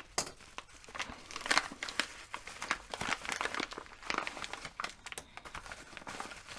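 A mail package being opened by hand: its wrapping crinkles, crackles and tears in irregular bursts.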